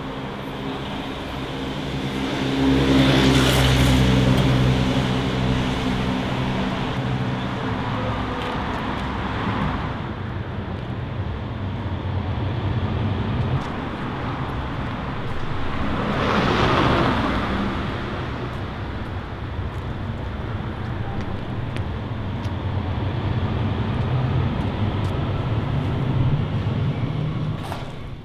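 Street traffic: a steady rumble of road vehicles, with two passing vehicles swelling and fading, one about three seconds in and one about sixteen seconds in.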